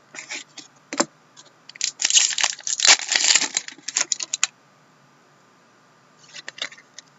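Packaging from trading-card packs being torn and crinkled, with sharp clicks and taps of cards and plastic being handled. The dense crinkling comes in the middle, and there are scattered clicks either side of it.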